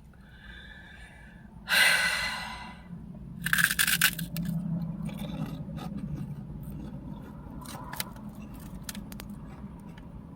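Crunchy puffed chip rings being bitten and chewed close to the microphone. There are two loud crunches about two and three and a half seconds in, then quieter chewing with small crackles.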